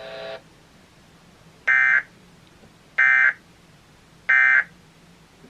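Emergency Alert System End of Message tones: three short, identical bursts of warbling data tones, about a second and a quarter apart, closing the Tornado Warning broadcast.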